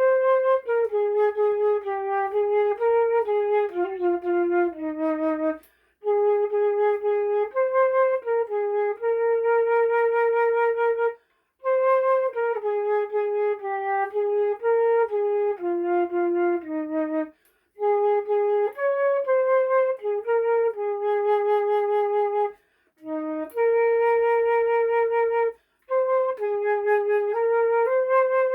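Solo flute playing a slow hymn melody, one note at a time, in phrases of a few seconds broken by short pauses for breath.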